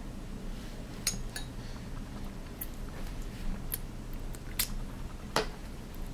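Small espresso spoon clinking and scraping against a baby-food bowl while squash is scooped out, about six sharp, separate clinks, the loudest near the end.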